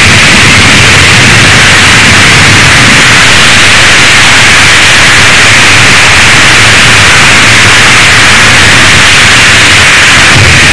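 Jet engine roar: a loud, steady rushing noise that holds unchanged.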